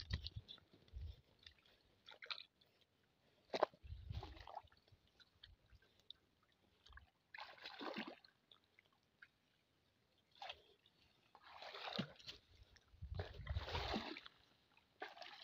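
Shallow muddy water splashing and sloshing in short separate bursts as a cast net is hauled in through it, with quiet gaps between; the longest bursts come in the last few seconds.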